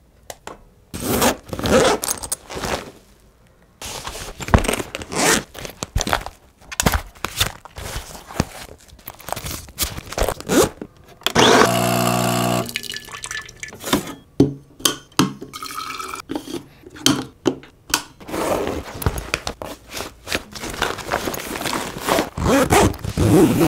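A run of everyday close-up handling sounds: clicks and rustles, then about halfway through a coffee maker running with a steady hiss and hum as coffee pours into a glass carafe, then more clicks and rustles of a backpack's compartments being opened near the end.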